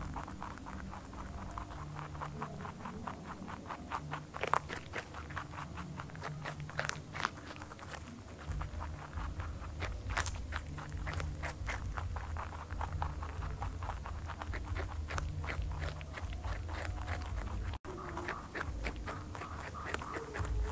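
Rabbits chewing raw cabbage and carrot: a rapid, continuous run of small crisp crunching clicks.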